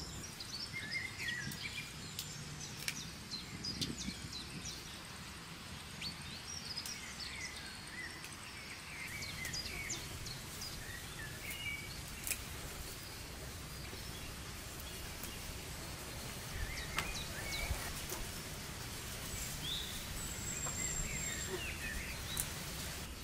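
Small birds chirping and calling on and off over a steady low outdoor background, with a few sharp knocks now and then.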